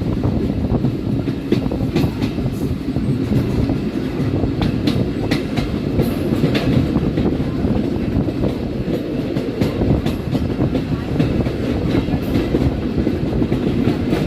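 A train rolling on the track: a steady heavy rumble with irregular sharp clicks of the wheels over the rail joints.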